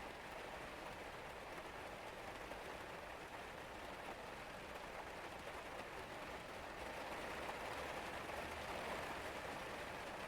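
Steady rain falling, an even hiss of many fine drops, growing slightly louder about seven seconds in.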